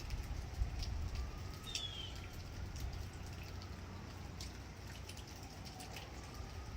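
Emergency-vehicle sirens wailing faintly, a slow rise and fall in pitch, with birds chirping now and then.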